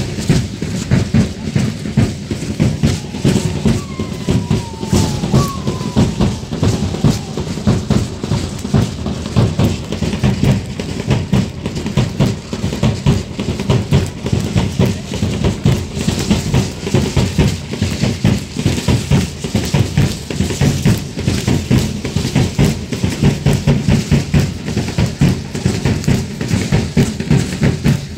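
Drums beating a fast, steady dance rhythm, a dense run of hits with no break.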